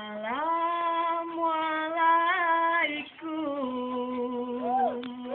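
A single voice sings long held notes with no instruments, as a Saman dance opens. It rises to one note, wavers briefly, then drops to a lower note from about three seconds in.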